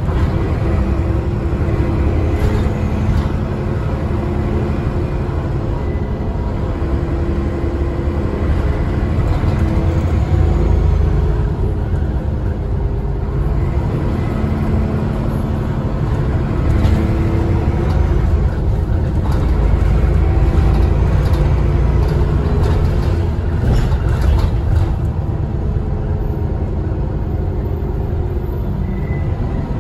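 Alexander ALX400 double-decker bus heard from on board: its diesel engine running under way with a continuous low rumble, the engine note shifting up and down several times as it drives.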